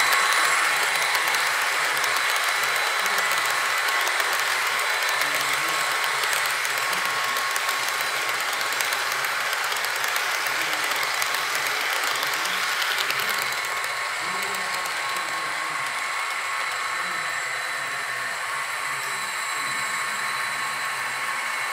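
Model freight train running past on sectional track: a steady whirring rattle of wheels on the rails and the locomotives' motors. It grows a little quieter about halfway through, as the train draws away.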